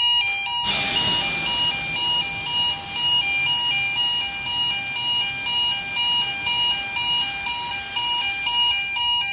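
A 2 kg Atom X fire suppression cylinder discharging its extinguishing agent into the enclosure: a sudden hiss starts under a second in, is strongest at first, tapers off, and stops just before the end. The system's pulsing two-tone alarm sounds throughout.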